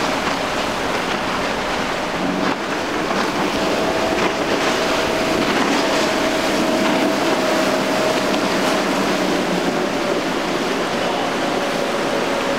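Single Suzuki 300 hp four-stroke V6 outboard on a Dusky center-console running at speed: a steady whine comes up about a third of the way in and sags slightly in pitch as the boat goes by. Under it is a constant rush of breaking waves, wake spray and wind on the microphone.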